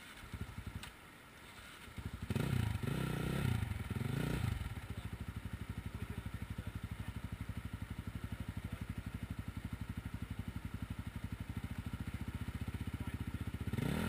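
Dirt bike engine starting about two seconds in, revved a few times, then idling with a steady, even beat.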